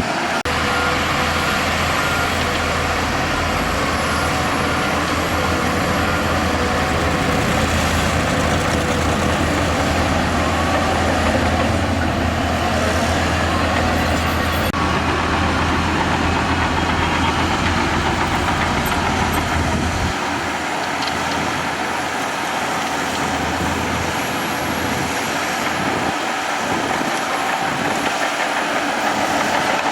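Heavy earthmoving machinery's diesel engine running steadily under work. Its deep low rumble drops away about two-thirds of the way through, leaving the lighter engine and machine noise.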